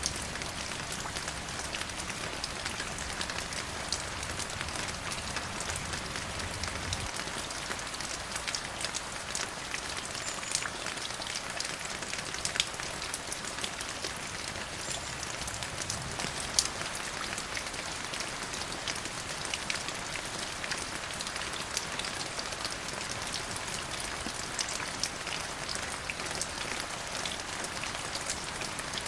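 Steady rain falling on a surface: a constant hiss with many individual drops ticking sharply throughout. A faint low rumble underneath stops about seven seconds in.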